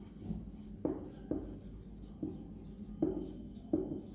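Marker pen writing on a whiteboard: a run of short, irregular strokes as letters are drawn.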